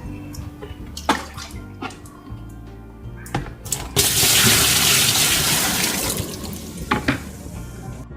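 Water running into the wash tub of a twin-tub washing machine, starting loudly about four seconds in and easing off over the next few seconds, after a few knocks and clicks. The tub is being filled to test whether the newly replaced drain seal and spring still let water leak out.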